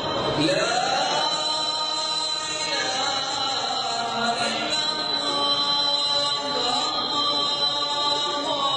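Unaccompanied vocal chanting, with long held notes that glide up and down in pitch.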